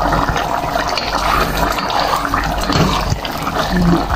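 Sardine broth with spaghetti noodles boiling in a pot, a steady bubbling and crackling, with a wooden spatula moving through the noodles.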